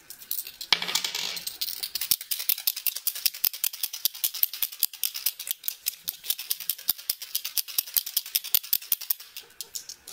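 A silver Uni-Paint PX-20 paint marker being shaken, its mixing ball rattling inside the barrel in a rapid run of clicks to stir the oil-based paint before first use. A short rustle comes about a second in, before the rattling starts.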